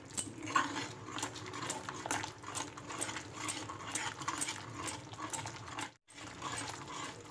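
A spoon stirring and scraping a yogurt-and-spice masala in a frying pan, in quick repeated strokes about two to three a second, with a brief break about six seconds in. The mix is kept moving constantly so the curd does not split.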